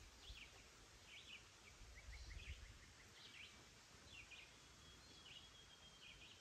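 Near silence with faint bird chirps: short calls repeating every second or so.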